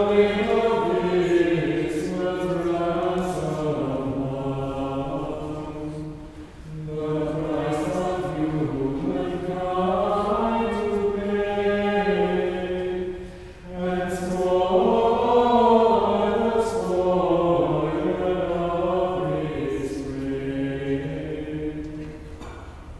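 A mixed choir of men and women singing slow, chant-like sacred music in long phrases, with two short breaks between phrases and the singing growing quieter near the end.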